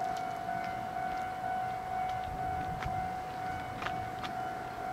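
A steady, unwavering high-pitched tone with a few faint overtones, siren-like, over low background rumble, with a few faint scattered clicks.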